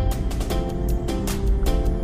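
Music with a steady beat, about two strong beats a second, over held notes and heavy bass.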